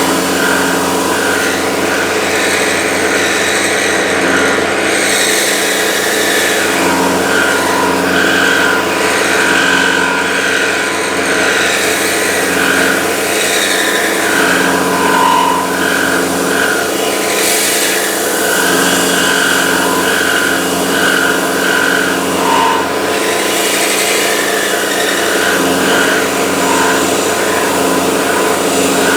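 Milling machine running with an end mill cutting metal: a steady motor hum under a higher cutting whine that breaks off and returns every second or so.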